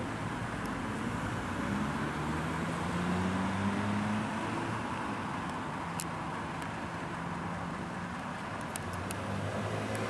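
Electric train running, heard from inside the car: a steady rumble with a motor hum that rises in pitch for a couple of seconds, and a few sharp clicks later on.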